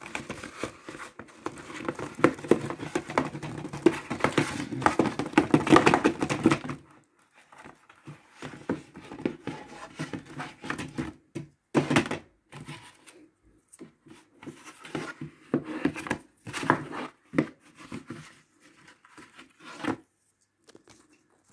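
Cardboard mailer envelope torn open by hand: continuous ripping and crinkling of the card for about the first seven seconds, then intermittent rustling and sharp handling sounds as the torn packaging is worked open.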